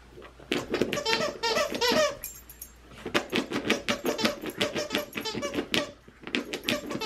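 The big squeaker inside a round plush dog toy squeaking over and over as a miniature schnauzer paws and chews at it. Quick runs of squeaks start about half a second in, with a short break near the end.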